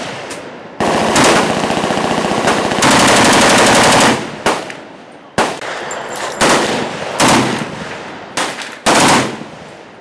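Fully automatic fire from a stockless HK-pattern machine gun: one long burst of about three seconds, followed by a string of short bursts.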